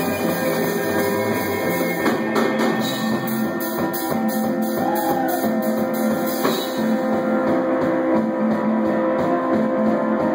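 Rock band playing live: electric guitars over a drum kit.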